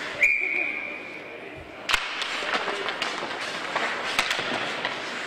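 Ice hockey rink sounds: a short, steady high whistle near the start, then a single sharp crack of stick on puck about two seconds in, followed by crowd chatter and scattered clicks of sticks and skates on the ice.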